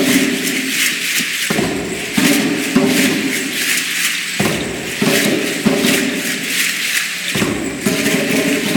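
Danza azteca performance: the dancers' ankle rattles shake in a quick rhythm with their stamping steps, over a low pounding and droning accompaniment that comes and goes every few seconds.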